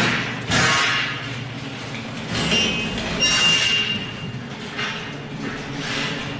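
MIG welder striking short arcs: several harsh crackling bursts of about a second each, over a steady low hum.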